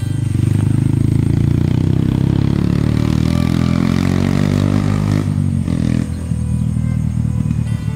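A small engine running, its sound growing brighter and slightly higher about three seconds in, then easing back sharply a little after five seconds in.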